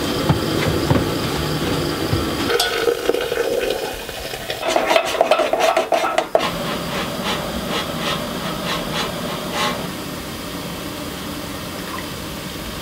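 Coffee being made by hand in a stainless steel French press: hot water poured into it, clinking and stirring inside the metal press, and coffee poured into a mug.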